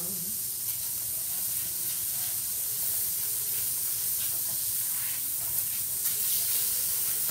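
Oil and pan juices sizzling steadily in a stainless steel skillet, with a spatula stirring through them.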